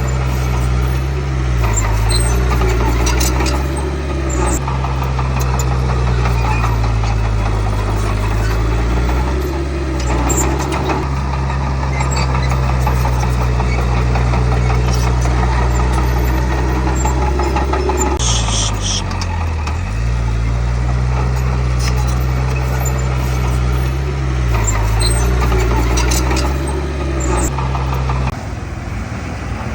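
Komatsu D31P bulldozer's diesel engine running hard, its pitch sagging under load and recovering about four times, with a brief high squeal about two-thirds through and clanks from the machine. The sound drops abruptly in level near the end.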